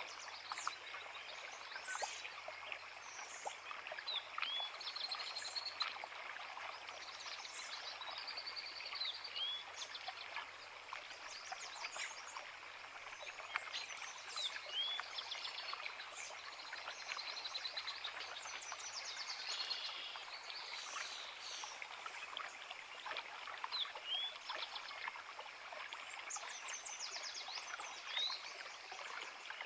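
Creek water running steadily, with several songbirds singing over it in short chirps and trills.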